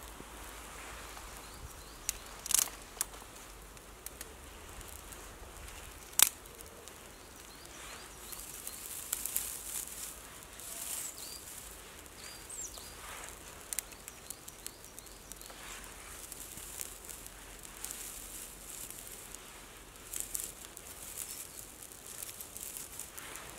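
Small fire of dry bracken tinder and thin twigs catching inside a teepee fire lay: quiet crackling and hissing, with a few sharp snaps, the loudest about six seconds in.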